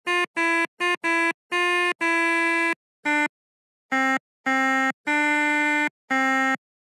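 A smartphone keyboard app's synthesized tone picking out a melody note by note: about eleven short and held notes at changing pitches, with brief silences between them, stopping shortly before the end.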